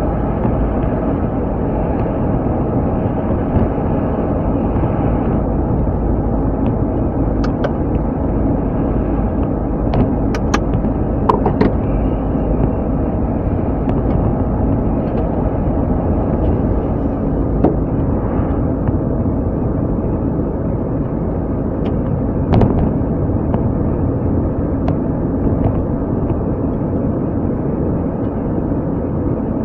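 A car driving: steady engine and road noise, with a few light clicks and knocks.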